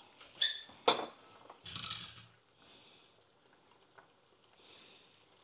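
A frying pan of hot rendered guanciale fat clanking twice as it is lifted off the gas hob to strain the fat, then a short hiss. A faint clink comes about four seconds in.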